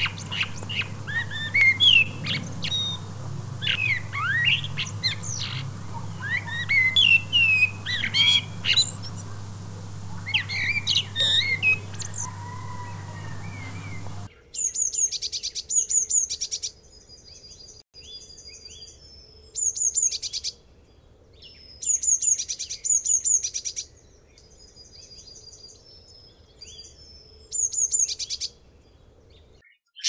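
A male Eurasian blackbird singing varied, fluty warbled phrases with gliding notes. About halfway through it cuts to a blue tit singing: short, high, rapid trills repeated in bursts every few seconds.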